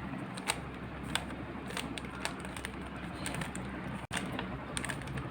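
Plastic speed cube being scrambled by hand: irregular, rapid clicking of the Rubik's cube's layers turning.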